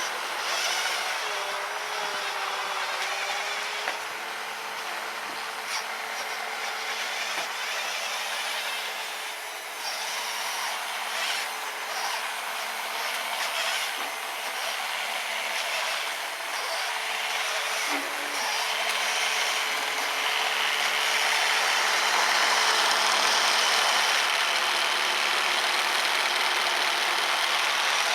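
RC snowblower's brushed 550 electric motor whining steadily as its auger chews through powder snow, with a dense hiss of snow being churned and thrown. A few short clicks fall in the middle, and the sound grows louder in the last third.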